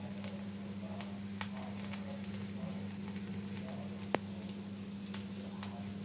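Red silicone spatula stirring cooked rice and potatoes in a nonstick pan: soft scrapes and light ticks, with one sharper click about four seconds in, over a steady low hum.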